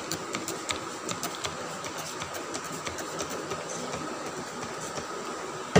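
Trigger spray bottle of sanitizer being pumped over and over, many short sprays in quick succession.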